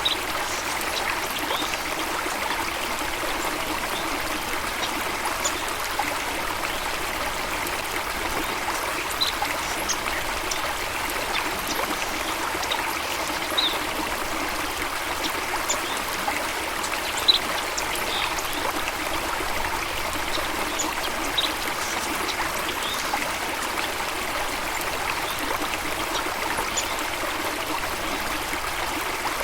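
Stream water running and trickling steadily, with brief faint high sounds scattered throughout.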